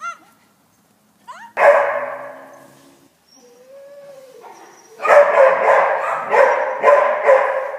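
A dog barking: one loud bark about a second and a half in that echoes away, then a quick run of about six barks, roughly two a second, from about halfway through.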